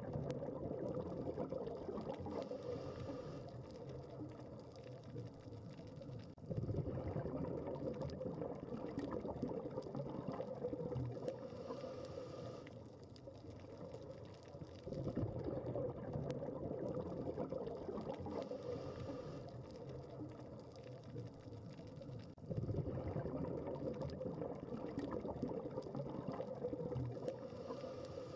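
Underwater scuba breathing through a regulator: each exhale is a loud spell of bubbling that starts abruptly and fades, with a quieter hiss between, about one breath every seven to eight seconds.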